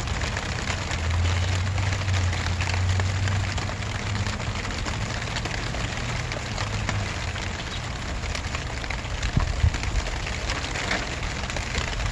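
Steady rain falling, a dense patter of drops on grass and outdoor surfaces. A low drone sits under it for the first half.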